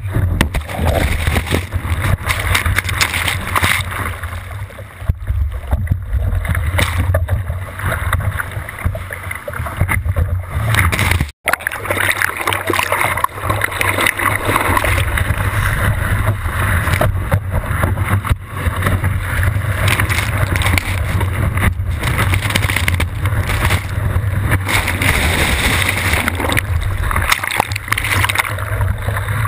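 Breaking surf and rushing whitewater heard through a board-mounted GoPro's waterproof housing, with a heavy low rumble of wind and water buffeting the camera and splashes washing over the lens. The sound cuts out for an instant about eleven seconds in.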